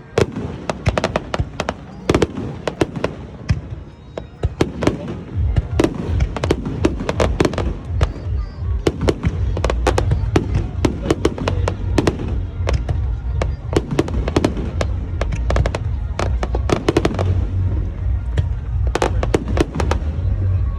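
Aerial fireworks going off in rapid succession: many sharp bangs and crackles close together. A continuous low rumble builds in from about five seconds in.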